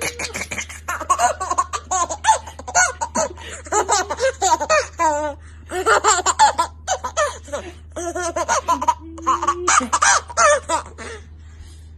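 Baby laughing hard in quick repeated bursts of giggles while being tickled under the chin. The laughter stops about a second before the end.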